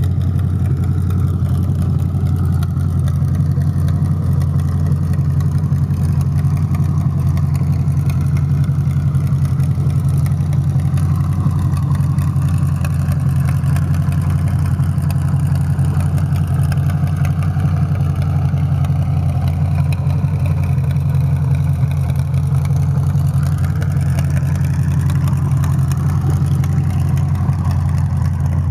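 1927 Ford Roadster hot rod's engine idling steadily, a low even drone with no revving.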